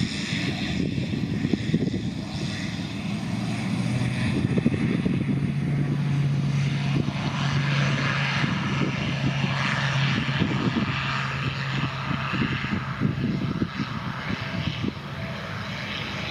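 2017 Pilatus PC-12's single Pratt & Whitney Canada PT6A turboprop engine and propeller at takeoff power as the aircraft begins its takeoff roll. A steady low propeller hum sits under a turbine hiss. It grows louder about four seconds in and eases off over the last few seconds as the aircraft accelerates away down the runway.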